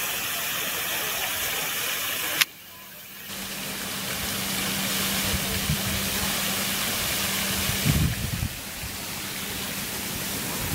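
Fountain water spraying and splashing into its basin, a steady hiss of falling water. A sharp click and a short dip come about two and a half seconds in, after which a low steady hum runs underneath, with a few low knocks near the end.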